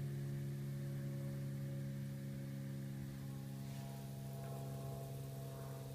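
A steady low hum made of several even tones, with a light hiss, slowly fading.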